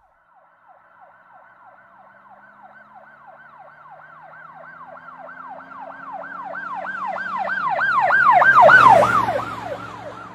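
Emergency vehicle siren in a fast yelp, about three to four sweeps a second. It grows steadily louder to a peak near the end, then begins to fade. A low hum underneath drops in pitch at the loudest point, as the vehicle passes.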